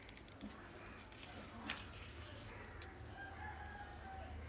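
A pocket lighter clicks sharply once. Near the end a rooster crows faintly for about a second.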